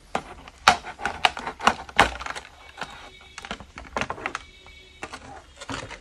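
Black moulded plastic packaging tray clicking and crackling as a neckband earphone is worked out of it by hand: a run of irregular sharp clicks, the loudest about two-thirds of a second and two seconds in.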